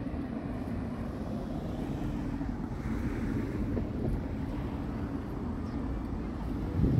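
Steady low rumble of wind buffeting the phone's microphone, mixed with road traffic, with a single low thump near the end.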